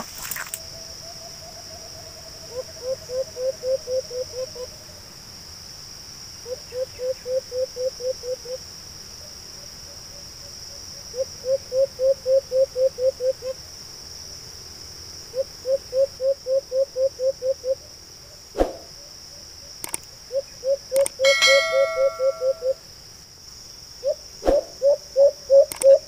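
White-eared brown dove (alimokon) calling: repeated runs of about eight to ten low cooing notes, about four a second, coming every few seconds and getting louder toward the end. A steady high-pitched insect buzz runs underneath.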